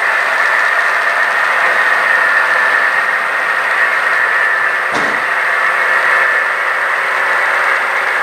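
Model railroad locomotive running on the layout: a steady whirring noise with a steady high tone, and a brief click about five seconds in.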